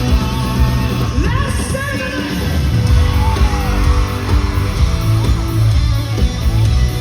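Live rock band playing loudly over a PA: guitars, bass and drums, with a voice singing and yelling over it.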